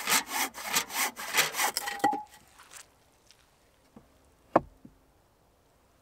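Hand saw cutting through a timber batten in quick back-and-forth strokes, about three or four a second, stopping about two seconds in. A single sharp knock follows near the middle.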